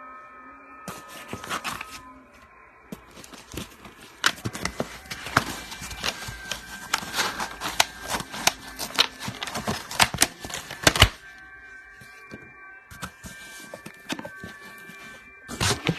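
Packaging being opened and handled: crinkling plastic wrap and cardboard with rapid irregular clicks and rustles, coming in spurts with a long busy stretch in the middle.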